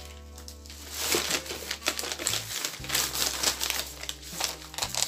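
Plastic food packaging crinkling and rustling as it is handled, set down and picked up, with dense crackling from about a second in to near the end.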